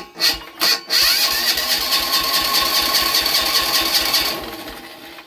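Electric starter cranking a high-compression diesel engine converted to run on woodgas, without it catching: two short bumps, then about three seconds of cranking with a whine and a fast, even chug of compression strokes that winds down near the end. The battery is too flat to start the engine.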